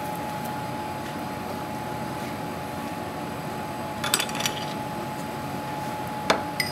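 Steady kitchen background hum with a thin, steady whine. A short cluster of light clicks comes about four seconds in and a single sharp click near the end, as utensils and crockery are handled on the counter.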